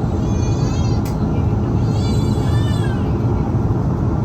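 Steady loud roar of jet engines and airflow heard inside an airliner cabin during the takeoff climb. Two short, high-pitched, wavering cries rise over it: one near the start and one about two seconds in, each lasting about a second.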